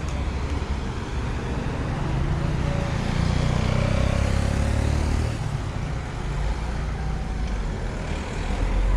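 Road traffic: a motor vehicle passing, its engine and tyre rumble swelling from about two and a half seconds in and fading a little past five seconds.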